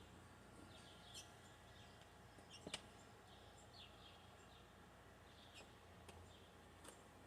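Near silence outdoors: faint, scattered bird chirps, with one sharp click about three seconds in.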